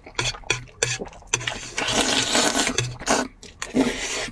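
Noodles being slurped up through the lips: a few short wet smacks, then a long noisy slurp of about two seconds and another short slurp near the end.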